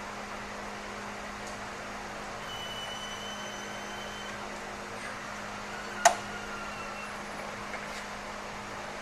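A single sharp metal clank with a short ring about six seconds in, as a tool or part strikes metal, over steady shop background hum. A thin high squeal sounds for under two seconds before it.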